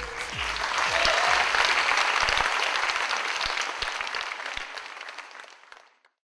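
Audience applauding at the end of a dance performance, swelling in the first second, then fading out near the end.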